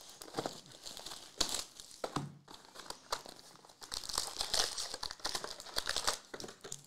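Plastic shrink-wrap crinkling and tearing as a Panini Recon hobby box of trading cards is unwrapped and its cardboard box pushed open. The crackling comes in uneven bursts, busiest in the second half.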